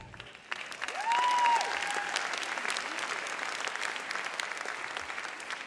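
Audience applauding steadily after the music stops, with one long, high cheer rising over the clapping about a second in. The applause slowly dies down.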